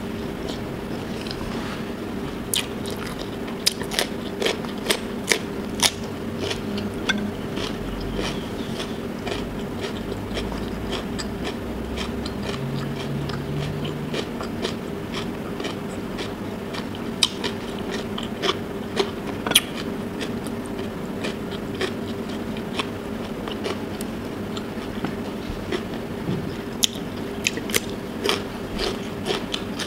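Close-up eating sounds: crisp crunching bites and chewing of raw cucumber sticks, as short clicks scattered irregularly through, over a steady low hum.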